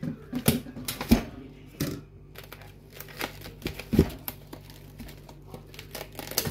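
Plastic cling film crinkling and crackling in irregular bursts as a hand picks at it and tears it off a foam tray of raw chicken, with a couple of louder knocks.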